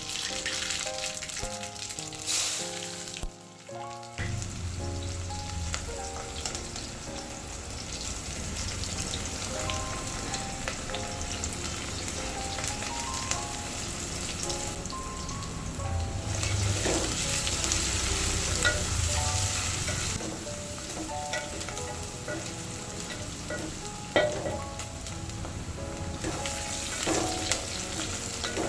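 Food sizzling as it fries in hot oil in a pan, with a few sharp clicks, over a background music melody.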